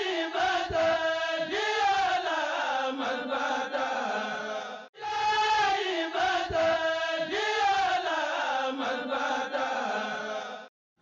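A voice chanting a melodic phrase, with the pitch gliding up and down. The same phrase of about five seconds is played twice, and it cuts off abruptly just before the end.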